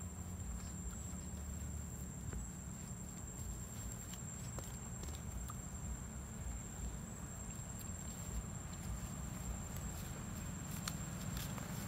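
A steady, high-pitched insect drone over a low background rumble, with faint scattered ticks.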